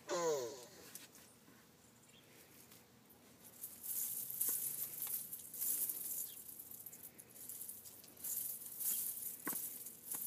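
A child's short falling vocal sound, then from about four seconds in irregular bursts of scratchy rustling as small hands dig and brush through dry potting soil and dead leaves, with a single sharp click near the end.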